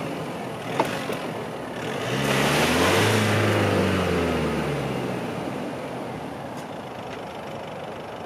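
Nissan Navara pickup's engine revving up about two seconds in, with a rushing noise of the wheels spinning in wet grass and mud, then dropping back to a low steady run. A single small click comes about a second in.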